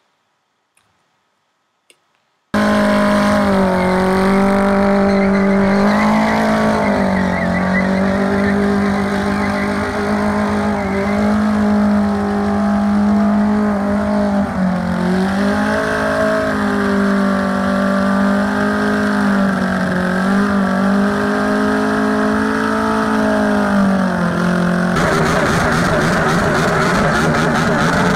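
After a couple of seconds of near silence with a few faint clicks, a vehicle engine cuts in abruptly at high revs. Its pitch is held fairly steady while the throttle swells and dips every few seconds, as when drifting. Near the end the sound turns rougher and noisier.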